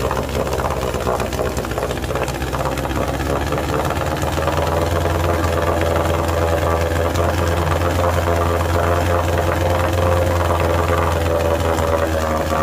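Rebuilt 1948 Sea King 5 HP two-stroke outboard motor running steadily in a test barrel of water on its first break-in run. Its note gets a little louder and fuller about four and a half seconds in.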